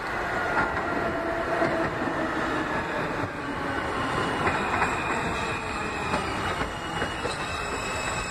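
New York City subway train running along the tracks, with steel-wheel squeal tones that come and go over the noise of the train.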